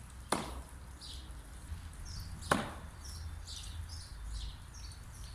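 No-spin throwing knives striking and sticking in a target: two sharp thunks about two seconds apart.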